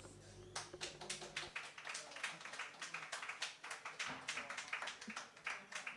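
A small audience clapping, quiet and scattered, with many uneven claps.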